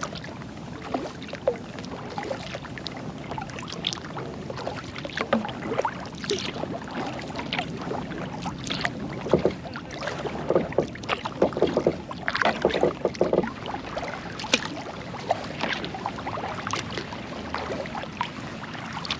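Kayak paddle strokes in lake water: irregular splashes and drips from the paddle blades, busiest and loudest about ten to thirteen seconds in.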